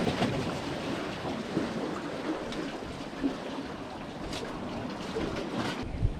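Sea water washing at the harbour's edge with wind on the microphone, and a few faint clicks; a gust buffets the microphone near the end.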